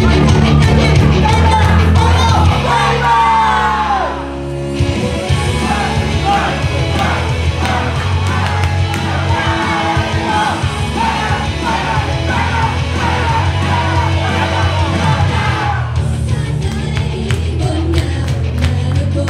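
Loud pop music with singing from a live idol-group stage performance, heavy on bass; the music dips briefly about four seconds in before the beat returns.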